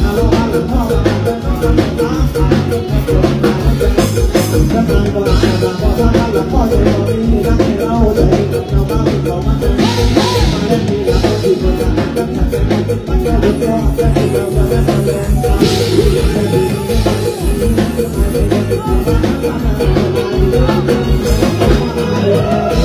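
Live Isan concert band music, loud, with a drum kit keeping a steady beat and a singer singing into a microphone.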